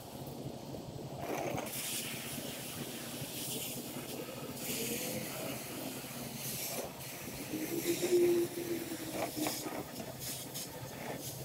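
Soft-wash spray wand hissing in bursts as solution is sprayed onto a slate roof. A short steady tone sounds about eight seconds in.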